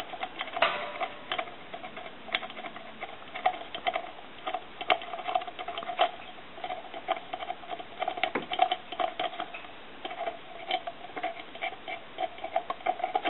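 Irregular light clicks, taps and scratching from a telephone circuit board being handled and cleaned on a workbench.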